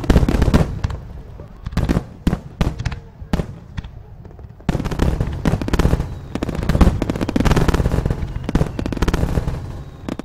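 Fireworks bursting overhead. A cluster of bangs comes at the start and a few single bangs follow, then a dense rapid run of bangs begins about five seconds in and thins out near the end.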